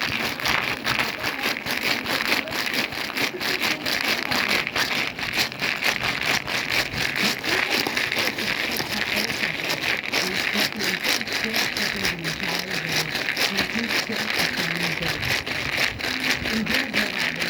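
Steady, dense crackling and pattering noise with faint voices underneath.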